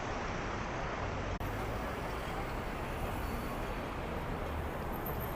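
Busy city street ambience: a steady hum of passing traffic, with a momentary dropout in the recording about a second and a half in.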